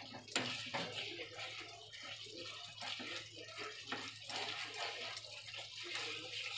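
A spatula stirring thick, wet tomato masala in a nonstick kadai as it fries, a squelching, bubbling sound with a few knocks of the spatula against the pan. The masala is being fried down until cooked.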